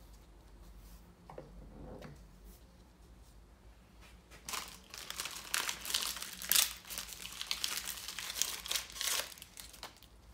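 A paper towel crinkling and rustling as gloved hands crumple and wipe with it, densest from about four and a half to nine and a half seconds in. A few light clicks come before it.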